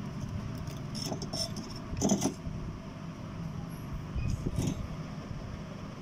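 Light metallic clicks and clinks of small tools and a small metal part being handled: a few about a second in, a louder cluster about two seconds in, and a few more near the end, over a steady low background hum.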